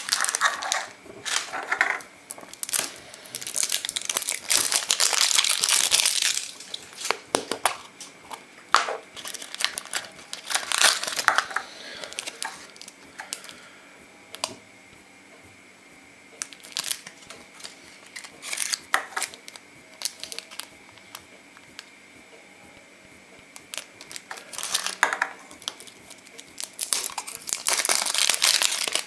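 Thin plastic wrappers crinkling and tearing as they are opened by hand, with small clicks from plastic toy-egg capsules being handled. It comes in several bursts of crinkling, the loudest about four to six seconds in, with a long lull of quieter handling in the middle.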